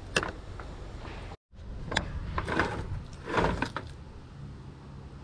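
Large metal spoon stirring and scraping through thick mashed potatoes in a cooking pot, in a few short strokes with a click near the start. The sound cuts out for a moment about a second and a half in.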